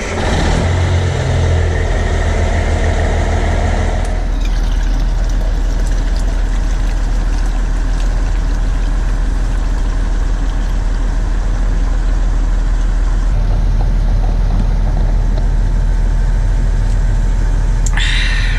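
Truck engine running with a steady low drone, a little busier for the first four seconds or so and then even.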